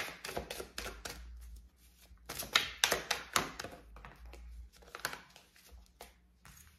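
A tarot deck being shuffled and handled, the cards giving quick, irregular clicks and flicks. A card is drawn and laid on the spread near the end.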